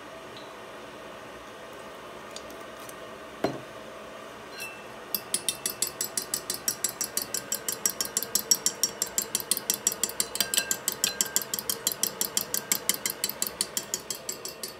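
A metal fork beating raw eggs in a ceramic bowl, clinking against the bowl about four to five times a second from about five seconds in. Before that there is a single knock.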